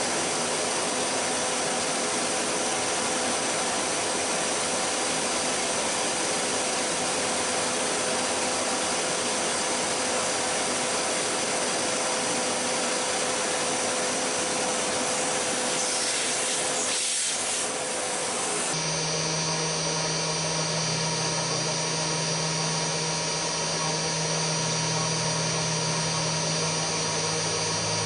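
Milling machine running, its 4 mm jobber drill boring through a cast iron backing plate: a steady machine whirr. About two-thirds of the way through it changes abruptly to a smoother hum with a low drone.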